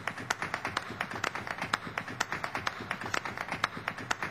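Percussive soundtrack of rapid, sharp taps and claps, several a second, in an uneven rhythm.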